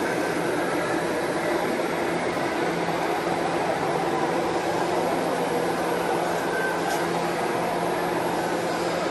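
Steady, even drone of a large, busy exhibition hall, with 1/14-scale radio-controlled model trucks running along the layout.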